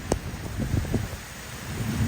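Wind buffeting the microphone during a rainstorm, with gusty low rumbling. A single sharp knock comes just after the start.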